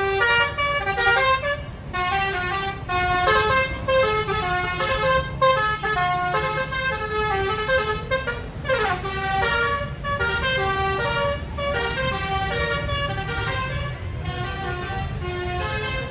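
Bus basuri horn playing a melody from its roof-mounted trumpets: a long run of quick stepped notes, with a fast downward slide about halfway through. A steady low rumble runs underneath.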